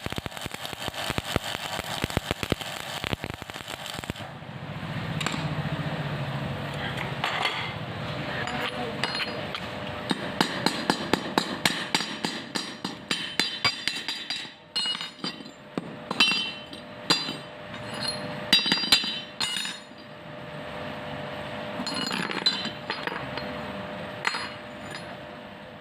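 Metalwork on scrap steel: a few seconds of dense electric-arc welding crackle, then a steadier stretch with scattered clicks. Past the middle comes a run of sharp hammer strikes and clinks on steel, as when knocking slag off a weld.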